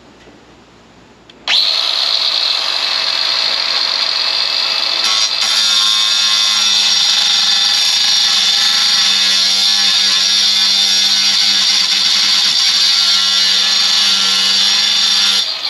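Power drill boring a 3/16-inch hole through the sheet-metal cover of a wiring trough. It starts about a second and a half in, runs steadily with a slight change in tone about five seconds in, and stops just before the end.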